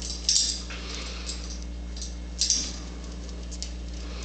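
A crow moving about its wire cage, its claws and beak giving a handful of short, scratchy clicks against the bars and perches, the loudest about half a second in and again about two and a half seconds in. A steady low hum runs underneath.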